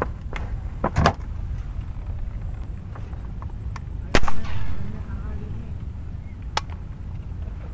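A homemade air-powered fishing gun fires once about four seconds in, a sharp crack with a short hiss after it. A couple of lighter knocks come about a second in.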